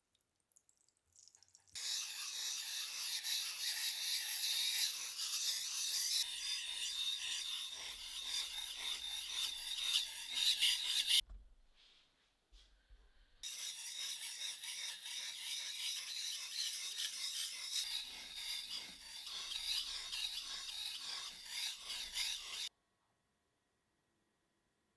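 Japanese sashimi knife blade being stroked back and forth on a wet whetstone, a steady gritty scraping. It runs in two long stretches with a short break about halfway through, then stops.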